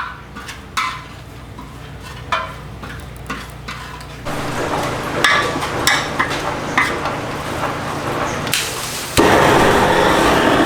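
Utensils clinking and scraping on a cauldron-lid pan, with food sizzling; the sizzle jumps louder near the end.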